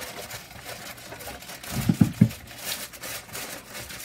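Parchment paper and foil rustling and crinkling as a metal baking pan is handled over a meatloaf on parchment, with three dull thumps in quick succession about halfway through.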